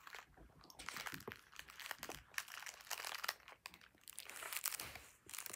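Crinkling of a plastic candy wrapper being handled and opened, a quiet run of irregular crackles and clicks.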